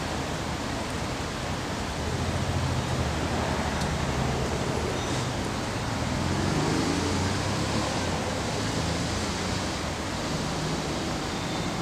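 Steady city street noise: a constant hiss with a low traffic rumble that swells a little a couple of seconds in and again past the middle.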